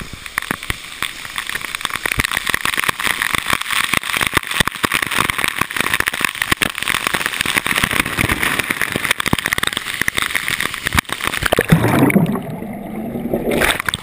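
Waterfall spray pelting a GoPro HD Hero2's waterproof housing at close range: a dense, loud crackling patter of water drops on the case. Near the end it turns muffled and low for about a second and a half.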